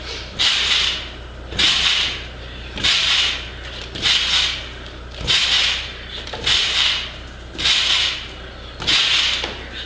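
A trampoline's springs and mat stretching under a rider bouncing on a tramp bike, a rushing creak with each landing, eight times at a steady rhythm of about one bounce every second and a quarter. A steady low hum runs underneath.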